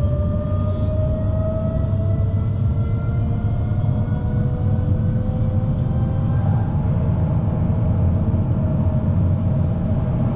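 Tram running on its rails, heard from inside the car: a steady low rumble with an electric motor whine that rises slowly in pitch as the tram picks up speed.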